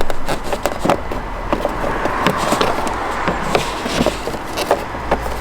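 Handling noise from work in a van's engine bay: irregular light clicks and knocks over a steady low hum.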